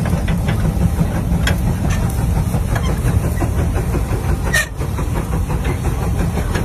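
Engine of a very large diesel tractor running hard under load as it pulls a giant multi-bottom plow through sod: a steady deep rumble, with a brief dip and a sharp click about four and a half seconds in.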